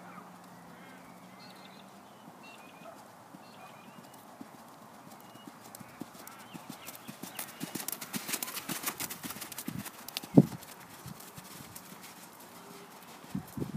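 Hoofbeats of a ridden pony on a sand arena, growing louder from about six seconds in as the pony comes closer. There is one much louder sharp thump about ten seconds in.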